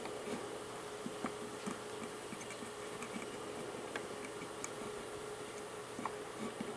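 A faint, steady one-note hum with scattered light ticks and clicks over it.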